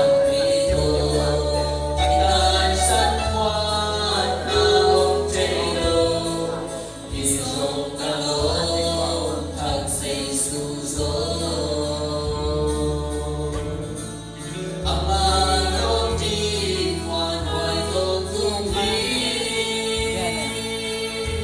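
A man and a woman singing a gospel song into microphones, accompanied by an electronic keyboard with a bass line and a steady beat.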